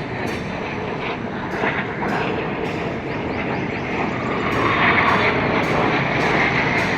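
Jet aircraft engine noise, a steady rushing sound that swells louder about four to five seconds in as the jets pass closer. Faint high clicks repeat about twice a second.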